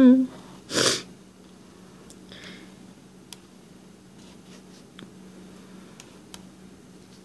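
A brief hummed note at the very start, then a short sniff through the nose about a second in. After that, faint scratches of a felt-tip marker on paper over a low steady hum.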